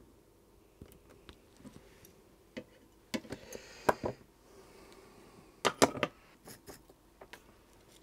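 Hand tools, needle-nose pliers and a soldering iron, being handled and set down on the bench: scattered light clicks, with a cluster of sharper clacks about three seconds in and another about six seconds in.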